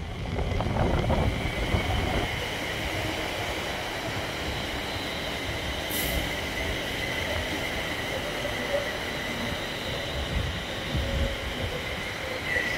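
London Northwestern Railway Class 350 electric multiple unit running past, with a steady rumble of wheels on rail and a high, steady whine over it. A brief high hiss sounds about six seconds in.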